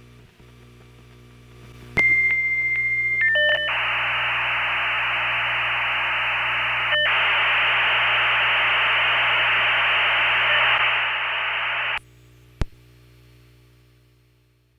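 Dial-up modem handshake from a Creative Modem Blaster V.90 calling over a simulated phone line. A click is followed by a steady answer tone for about a second and a few quick tone changes, then about eight seconds of loud hissing data noise. The noise cuts off suddenly as the modems connect, and a single click follows.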